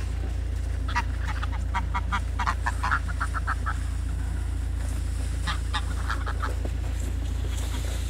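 Greylag geese calling in runs of short, rapid honks: a long run starting about a second in, and a shorter one a little past the middle.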